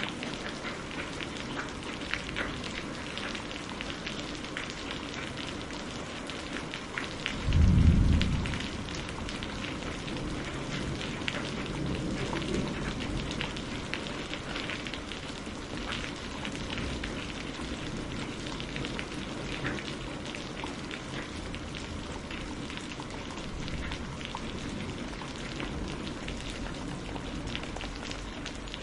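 Steady heavy rain, with many single drops ticking through it. About seven seconds in comes a short, loud, deep thunderclap, the loudest sound here, followed a few seconds later by a softer low rumble.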